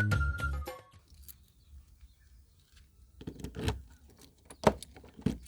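Background music with a steady beat ends within the first second. A few faint clicks and knocks follow, about three to five seconds in.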